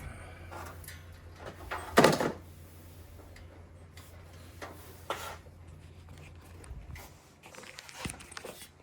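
Mac Tools hand crimpers squeezing a wire connector closed: a few separate clicks and clunks, the loudest about two seconds in, over a steady low hum that stops near the end.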